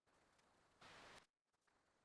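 Near silence: faint room tone with a soft hiss that swells and fades, about every one and a half seconds.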